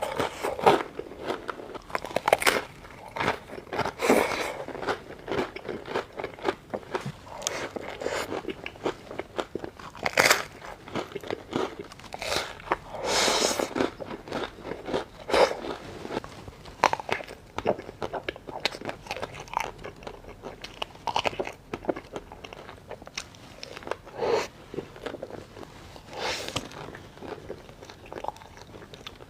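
Close-miked biting and crunching into a chocolate-coated vanilla ice cream with crisp mille-feuille pastry layers, and chewing, with many irregular crunches.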